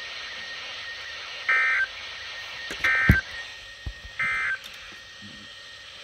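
NOAA Weather Radio receiver sounding the EAS end-of-message code: three short identical bursts of SAME data tones about 1.4 s apart over steady radio hiss, marking the end of the alert broadcast. A sharp click comes during the second burst.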